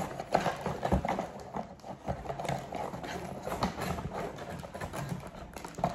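Handling noise from packing a cardboard box: a plastic bag of glue sticks crinkling and rustling, with irregular light knocks and taps against the cardboard.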